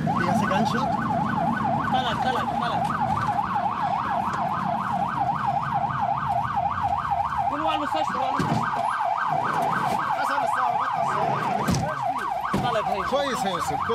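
Ambulance siren in a fast yelp, its pitch sweeping up and down about three to four times a second without a break. From about eight seconds in, shorter rising-and-falling sounds come in lower down beneath it.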